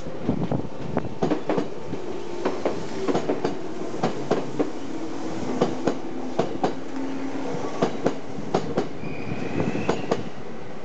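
A train rolling slowly over the level crossing, its wheels giving a rapid, irregular clacking over the rail joints. A short high-pitched wheel squeal comes near the end.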